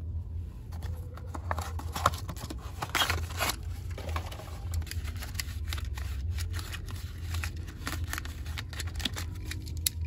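Cardboard window box being opened and its plastic tray slid out by hand: rustling, scraping and a run of small clicks and taps, with a louder rustle about three seconds in.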